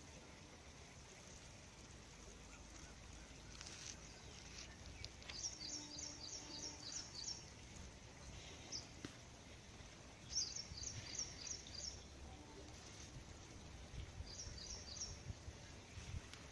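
A small bird calling in three runs of quick, high chirps, about four notes a second, over faint steady outdoor background noise.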